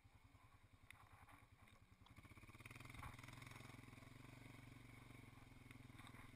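Near silence: faint outdoor room tone, with a faint steady low hum that sets in about two seconds in.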